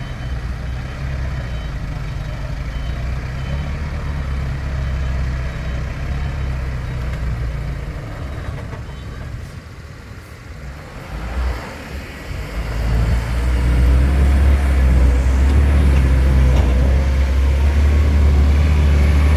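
Diesel dump truck engine labouring under load as the truck tries to climb a slippery dirt track. It eases off about halfway, then picks up again and runs loud from about two-thirds of the way in.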